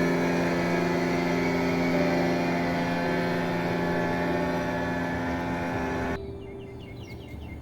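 An engine running steadily at a constant speed, which cuts off abruptly about six seconds in, leaving faint high chirping.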